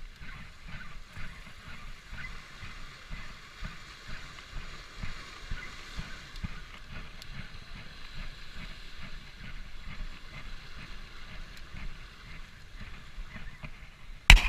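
Sea surf washing and churning against a rocky jetty, with wind rustling on the microphone. Near the end come two loud knocks as a hand bumps the camera.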